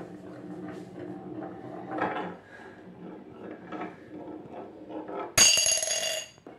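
Marble rolling down a wavy wooden HABA track, a rumble that surges as it swings back and forth through the curves. About five seconds in it drops off the end into a drinking glass with a sharp clink and a bright ringing that lasts about a second.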